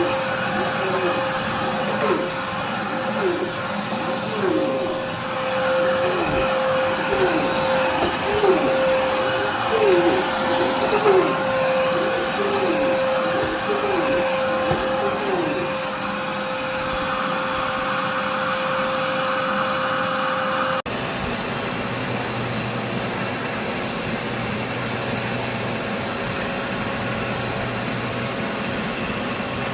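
A machine running steadily with a constant hum. For roughly the first half, a regular swishing sound repeats about once a second. About two-thirds of the way in, the sound cuts abruptly to a different steady drone.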